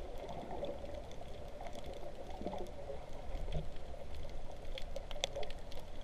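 Underwater sound picked up by a submerged camera: muffled water movement with a low rumble and scattered sharp clicks and crackles.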